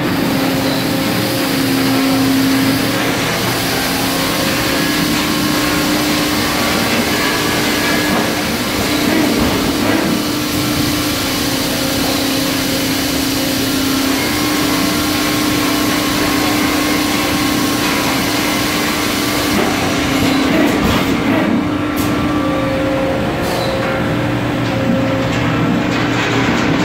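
Husky HyPET 400 PET preform injection molding machine running in production: a loud, steady machine hum with a constant drone and an even wash of mechanical noise. A few sharp clicks come near the end.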